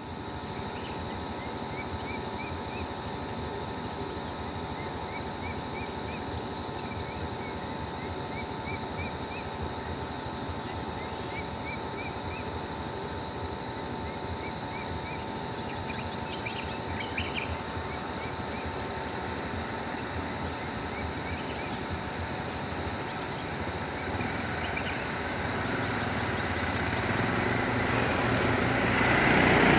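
Birds calling over a steady vehicle engine hum: repeated short rising chirps and quick high trills come and go. Near the end the engine sound grows steadily louder.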